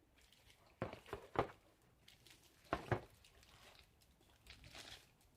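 Handling of a plastic battery charger and its cable: a few sharp clicks and knocks about a second in, two more about three seconds in, then a soft rustle near the end.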